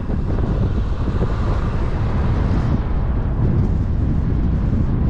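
Loud, steady wind rumble on the microphone, a constant low rush with no break.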